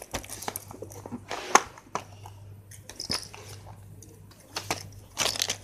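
Plastic pencil boxes being handled and opened: scattered clicks and knocks of plastic, the sharpest about one and a half seconds in, over a faint low hum.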